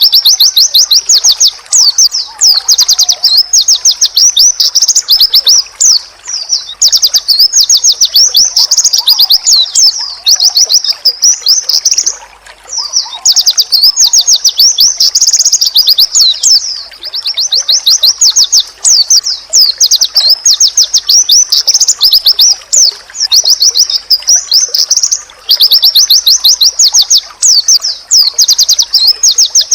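Pleci (white-eye) singing long, fast chattering runs of high, sharp notes, broken by a few brief pauses. It is the kind of loud song played to birds in training to set other white-eyes answering.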